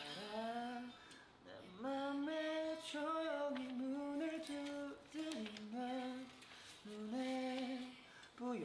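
A young man singing a slow ballad melody unaccompanied in a light voice, holding notes and moving by small steps in pitch, with short pauses between phrases.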